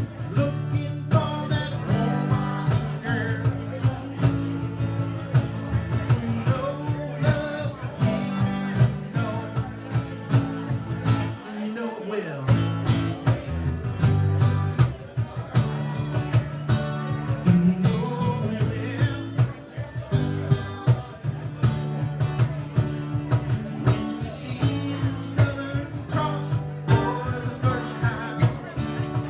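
A small band playing a song, with a singing voice over guitar and a steady beat; the low bass drops out for about a second midway.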